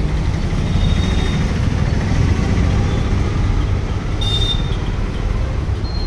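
Steady low mechanical rumble, like a motor or engine running, with a brief thin high-pitched tone about four seconds in.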